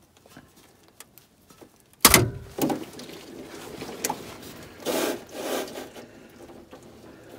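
Automatic transmission fluid suddenly gushing out about two seconds in as the loosened transmission pan drops at one edge, splashing loudly into a plastic drain pan and then pouring on in uneven surges.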